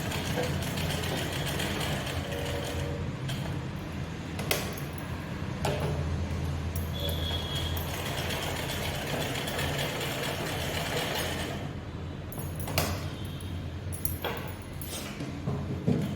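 Electric sewing machine running steadily as a blouse is stitched, with a few sharp clicks.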